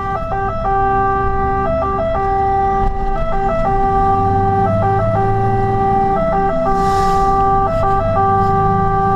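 Fire engine's two-tone siren heard from inside the cab, holding one pitch and flicking quickly to the other and back about every second and a half, over the truck's engine pulling under load. A short hiss about seven seconds in.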